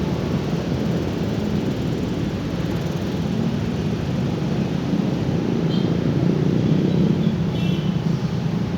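Steady low outdoor rumble, like wind buffeting the microphone or distant traffic. A few faint short high chirps come about six and eight seconds in.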